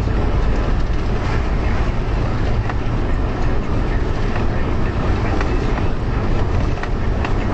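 DAF lorry driven at about 60 mph, heard inside the cab: steady engine and road rumble with scattered rattles and knocks.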